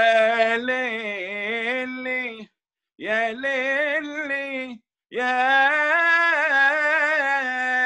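A man singing solo, unaccompanied, in three long phrases with held, wavering notes and short pauses between them, heard through a video call.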